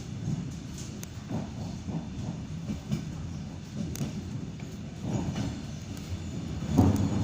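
ED9M suburban electric train running on the rails, heard from inside the car: a steady low rumble with the wheels knocking over rail joints, and one louder knock near the end.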